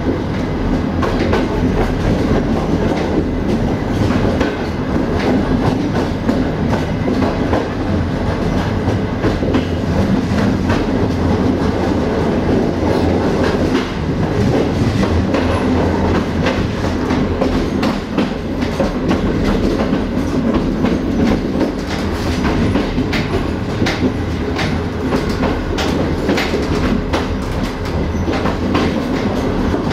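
Passenger train running along the line: steady rumble of wheels on rail with irregular clickety-clack of the wheels passing over rail joints, and a low hum under it.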